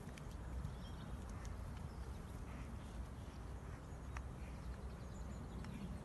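Faint hoofbeats of a horse cantering on grass, moving away, over a steady low rumble.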